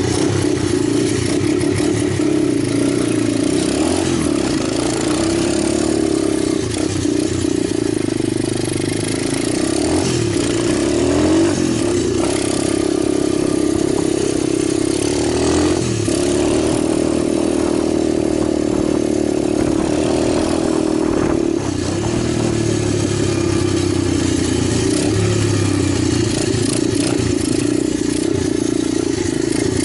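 Engine of an Italjet 125cc pit bike running continuously, its pitch rising and falling with the throttle every few seconds.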